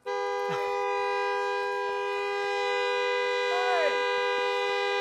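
Vehicle horn held on in one long unbroken blast, its two tones sounding together: a dog is standing on the steering wheel. A brief shout or laugh cuts over it a few times.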